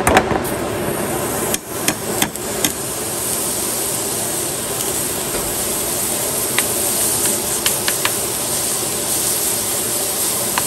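Butter spread sizzling in an overheated pan that is already smoking, with a steady hiss. A plastic spoon taps and scrapes against the pan several times in the first few seconds and again around seven to eight seconds in.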